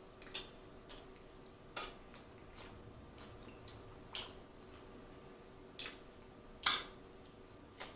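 Close-up eating sounds of rotisserie chicken: short wet smacks and squishes as it is chewed and pulled apart by hand, coming every second or so over a faint steady hum.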